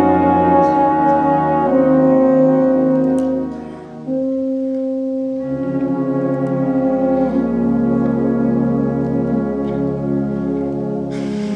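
Concert band of brass and woodwinds playing slow, held chords, with the tuba and low brass underneath, the harmony shifting every one to two seconds. The sound thins out just before four seconds in and the full band comes back in on a new chord; a brief hiss of noise swells near the end.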